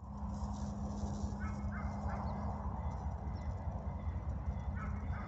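Short animal calls, two quick runs of three, over a steady low rumble.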